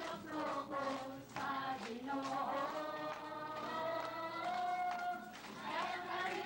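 A woman singing a worship song into a handheld microphone, her voice amplified, with a congregation singing along.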